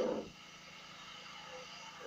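A single chuff from a steam locomotive's exhaust right at the start, dying away quickly, over a steady background hiss.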